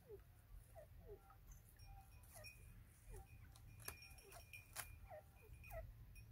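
Young francolins (teetar) giving faint, short downward-slurred peeps, one or two a second, with a few sharp clicks in the middle.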